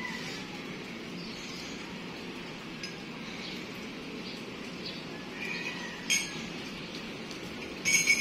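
A ceramic coffee mug clinking against a tabletop: one sharp clink about six seconds in, then a louder quick cluster of clinks near the end as the mug is set down.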